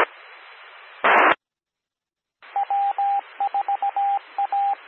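Radio repeater's automatic Morse-code identifier sending its call sign, W4AP, as a single keyed tone over the hiss of the carrier. It comes after a short burst of squelch noise about a second in and a moment of dead silence.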